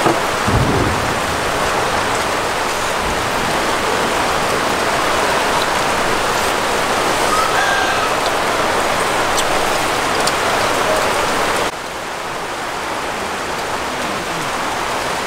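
Steady rain falling, an even hiss of water, with a couple of soft low thumps in the first few seconds.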